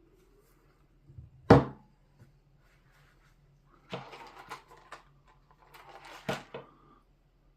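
A single sharp knock, then a few seconds of clattering and rustling with several smaller knocks, as of objects being handled and set down on a hard surface.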